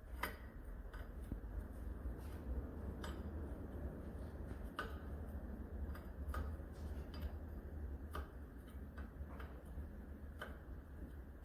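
Irregular light clicks and taps, about one a second, from tools and metal parts being handled during work on a skid-steer's hydraulic ram, over a low steady rumble.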